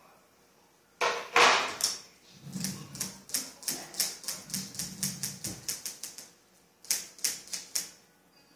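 Grooming scissors snipping a Yorkshire Terrier's hair: a steady run of crisp snips at about four a second, a short pause, then a quicker burst of snips near the end. A louder, brief rustling noise comes about a second in.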